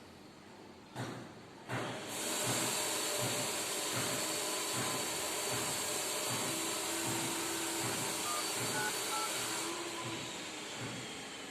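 Two sharp knocks, then a loud, steady hiss that eases off near the end.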